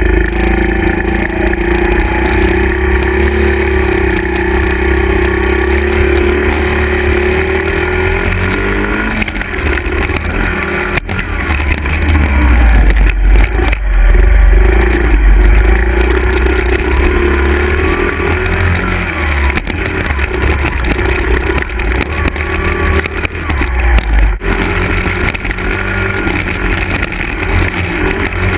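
Small single-cylinder four-stroke engines of two Honda 50cc dirt bikes, an XR50R and a CRF50, running under throttle on a dirt trail, their pitch rising and falling as the riders work the throttle. Wind rumbles on the helmet camera, with a few sharp knocks from bumps.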